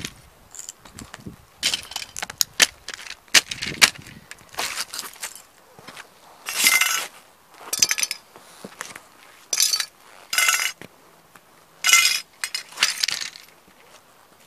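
Lowa hiking boots stomping on toy model cars on concrete: a series of sharp cracks and crunches as the plastic bodies break underfoot, some crunches drawn out for half a second or more, with loose pieces clinking and scraping on the ground.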